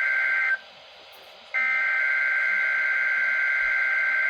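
NOAA Weather Radio emergency-alert data burst (the digital SAME header) of a required weekly test: a loud, harsh buzzing two-pitch screech. One burst cuts off about half a second in, and after a one-second gap an identical burst runs about three seconds.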